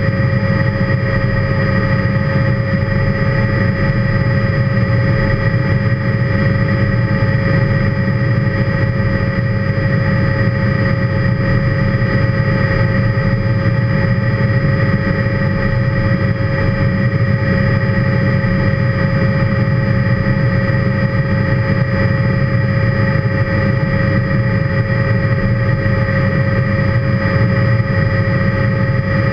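Helicopter in steady cruise flight heard from inside the cockpit: a constant low rumble of engine and rotor, with several steady whining tones over it that hold the same pitch throughout.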